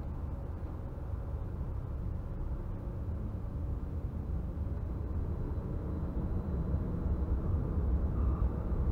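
Steady low rumble of a Stadler Variobahn tram heard from on board, slowly getting louder toward the end, with a short tone starting just at the end.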